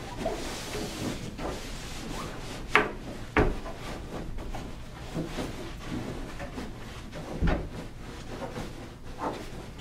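Fabric rustling and handling as a stuffed center pillow is pushed and tucked into a donut-shaped pet bed, with a few sharper knocks, two about three seconds in and one past seven seconds.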